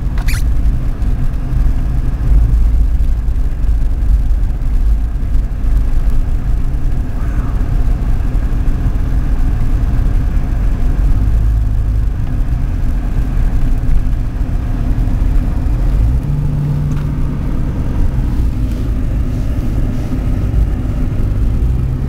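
Car driving slowly over a snow-covered road, heard from inside the cabin: a steady low rumble of engine and tyres. A steady hum comes in for a couple of seconds about sixteen seconds in.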